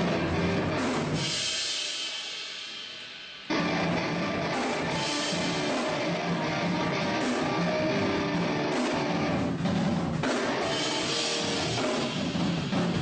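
Metalcore band playing live at a soundcheck: drum kit and electric guitars. About a second in the band stops and a cymbal rings out and fades. The full band comes back in abruptly a couple of seconds later and plays on.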